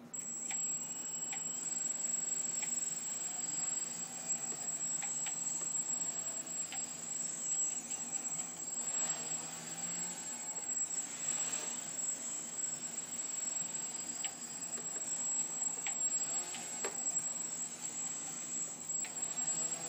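A homemade quadcopter's four electric motors and propellers start up suddenly and run as a steady buzzing whine, with a thin high tone over it. The whine swells twice near the middle, and there are scattered light ticks.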